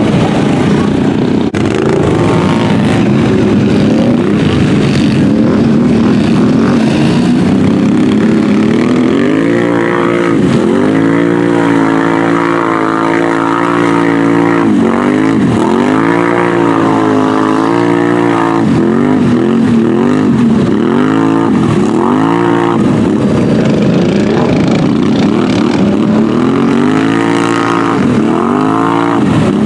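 Off-road ATV engine revving hard while churning through deep mud. Its pitch repeatedly sags and climbs back as the throttle is worked, several times in the second half.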